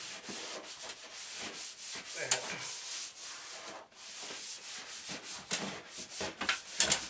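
Wallrock thermal wall liner being unrolled and smoothed onto a pasted wall by hand: continuous rubbing and rustling of the thick liner against the wall, with frequent sharp crackles, the loudest about two seconds in and again near the end.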